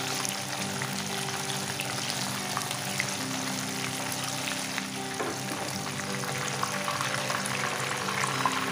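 Two cornflour-coated rupchanda (silver pomfret) frying in hot oil in a nonstick pan: a steady sizzle, full of small crackles.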